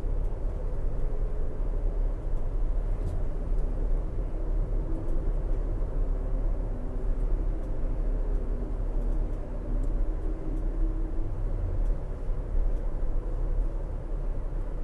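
Car tires on a stretch of highway pavement, heard inside the cabin: a steady low road rumble with a faint, wavering moan on top that rises and falls and is clearest in the middle, like someone moaning or crying or wind howling in the distance. The driver puts the moan down to something in the road surface that makes the tires do this.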